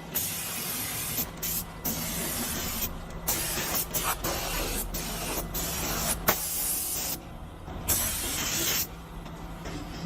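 Anti-rust spray being applied to a CNC wood lathe in repeated hissing bursts, each lasting about one to two seconds with brief breaks between, under a faint steady hum.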